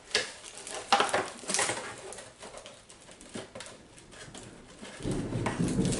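Packaging handled as an item is pushed back into its box: a few sharp clicks and knocks with rustling between. About five seconds in, a low rumble of distant thunder sets in.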